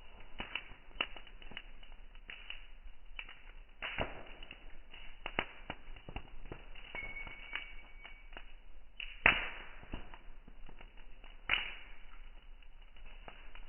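Holika Dahan bonfire crackling, with irregular snaps and pops over a low hiss. Two much louder sharp cracks come about nine and eleven and a half seconds in.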